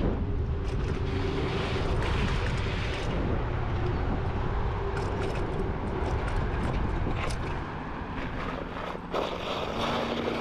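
Riding an electric dirt bike: wind rushing over the microphone and tyre noise, with a faint steady hum.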